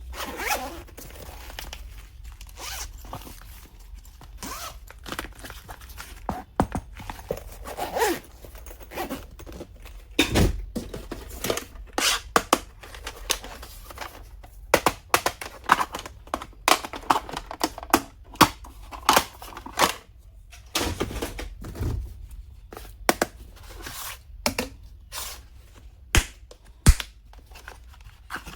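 Stationery and its packaging being handled and unpacked: an uneven string of clicks, taps and short tearing and crinkling sounds, over a faint low hum.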